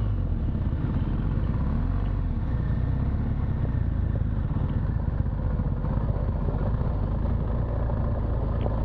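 BMW R1200 GS Adventure's boxer-twin engine running steadily at low speed, a continuous low rumble with fast, even firing pulses.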